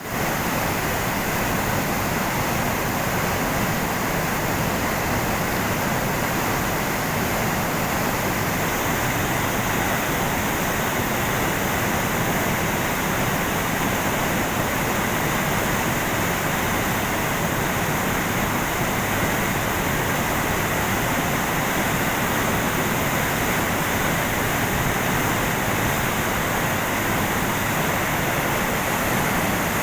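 Canal water in monsoon flood pouring over a fall, a steady unbroken rush of churning water.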